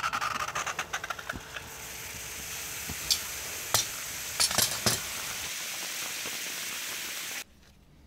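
Hot freshly cast aluminium ingot quenched in a pan of water: a dense sizzling crackle as it goes in, settling into a steady hiss of boiling water and steam, with a few sharp clicks along the way. The hiss cuts off abruptly near the end.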